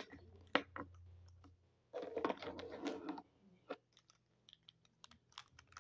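Plastic felt-tip markers clicking and rattling against each other and the tabletop as they are gathered up by hand, in a scatter of light taps.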